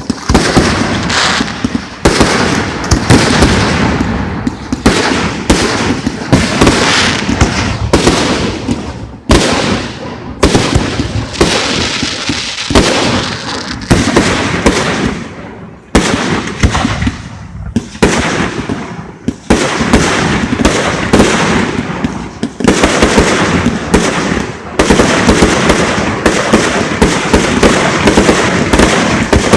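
Aerial fireworks display going off in continuous barrages: a steady stream of loud bangs with crackling between them, and fresh volleys about every two seconds. Near the end the reports come thicker and faster, a rapid crackling fusillade like a finale.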